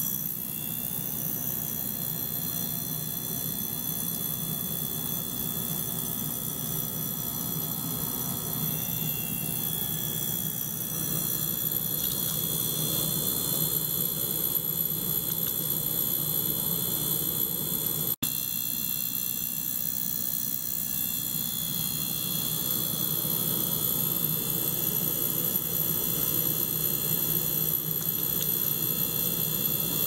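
Ultrasonic cleaning bath running while a small pump circulates water through its tubing: a steady hiss with a high-pitched whine over a low hum. The sound drops out for an instant once, about 18 seconds in.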